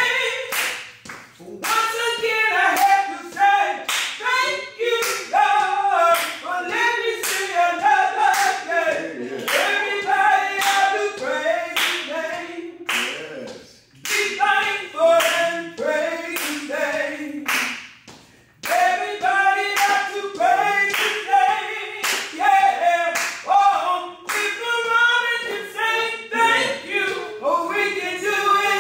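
A woman singing a gospel song unaccompanied, with hand claps keeping a steady beat and a few short breaks between lines.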